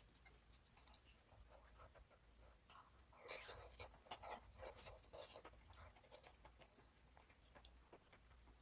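Near silence with faint small clicks, and a brief patch of soft rustling and ticking about three to five seconds in.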